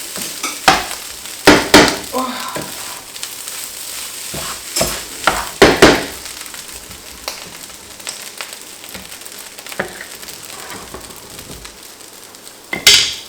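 Fried rice sizzling in a hot pan while it is stirred, with a steady hiss and a utensil scraping and knocking against the pan. The loudest knocks come about a second and a half in, about six seconds in and just before the end.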